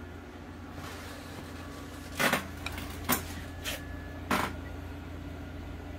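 Steady hum of aquarium equipment, air pumps and filters running, broken by four short knocks or bumps between about two and four and a half seconds in.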